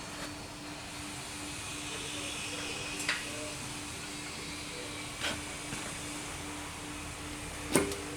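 Three sharp knocks of tools and parts being handled while the fuel injection pump is fitted to the engine, the last near the end the loudest, over a steady hum and hiss.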